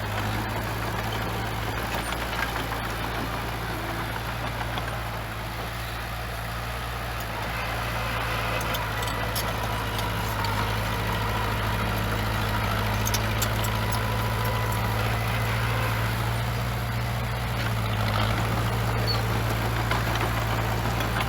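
Heavy diesel engine of earthmoving machinery running steadily, a low, constant drone with engine noise above it.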